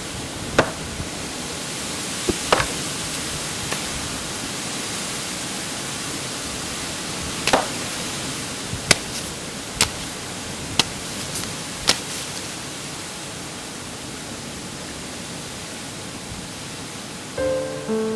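Wind buffeting the microphone, with a series of sharp cracks and knocks from a stick being swung against a tree's branches, about nine strikes spread over the first twelve seconds. Plucked guitar music comes in near the end.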